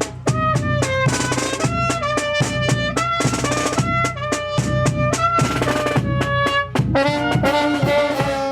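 Brass band with trumpets playing a melody in held notes over a steady beat of snare and bass drums.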